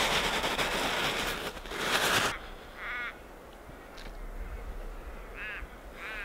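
Fresh snow scooped up and crunched by hand for about two seconds, then a crow cawing three times, spaced out.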